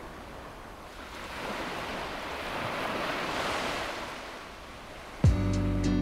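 Small bay waves washing against a rocky shore, swelling and easing off. Near the end, acoustic guitar music starts suddenly and is louder than the waves.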